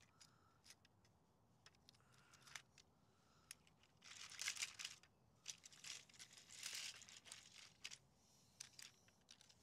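Near silence with faint clicks and short rustles of plastic toy train cars and track being handled, strongest about four and a half and again about seven seconds in.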